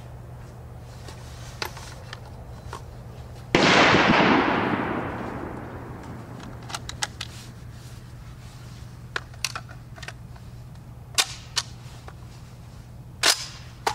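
A single 12-gauge shot from a Charles Daly N4S semi-automatic shotgun about three and a half seconds in, a loud blast with a boom that fades over about two seconds. Several fainter, short sharp cracks follow later, the strongest near the end.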